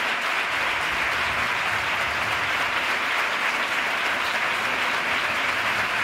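Theatre audience applauding steadily: a dense, even sound of many hands clapping.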